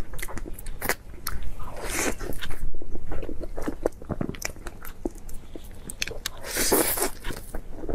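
Close-miked eating sounds: a soft pink filled roll being pulled apart and bitten into, with chewing and many small wet mouth clicks. Two longer noisy stretches come about two seconds in and again near the end.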